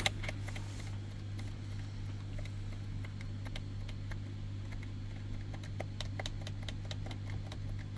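Keys being typed on an HP EliteBook 840 G1 laptop keyboard, irregular clicks in quick runs: testing that the keyboard responds after the no-power fault is fixed. A steady low hum sits beneath the clicks.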